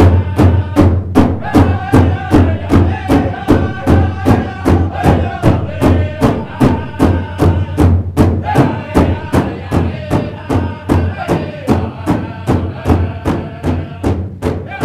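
Big drum struck in unison by a circle of seated drummers in a steady, even beat of about three strikes a second, with group singing over it that breaks off briefly about eight seconds in.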